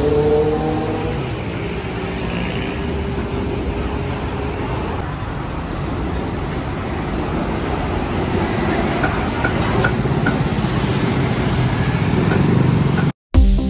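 Road traffic: cars and motorbikes passing on a busy city street, a steady rumble, with one vehicle's engine falling in pitch as it goes by at the start. It cuts out abruptly near the end and electronic dance music begins.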